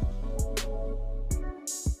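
Background music with a steady beat: drums over a sustained bass, the bass dropping out briefly near the end.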